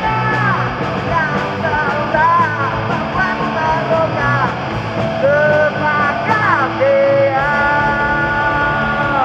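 Punk rock band playing live and loud: electric guitar and drums, with a sung vocal line over them.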